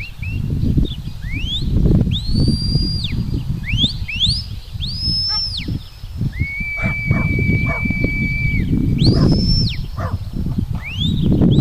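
Sheepdog handler's whistle commands: a string of high whistled calls, most rising, holding briefly and dropping away, with one long, steadier, lower note in the middle, over a low rumble.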